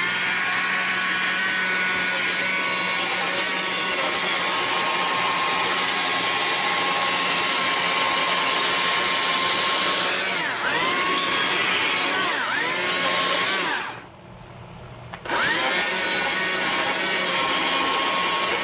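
Chainsaw running at full throttle as it cuts into a wood block, its pitch dipping twice under load. About fourteen seconds in the throttle is let off for about a second, then it revs up and cuts again before letting off near the end.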